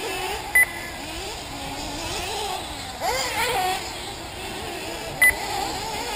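Several 1/8-scale nitro buggy engines buzzing around the track, their pitch wavering up and down as they rev and back off, with one revving up louder about halfway through. Two short, loud high beeps cut through, one about a second in and one near the end.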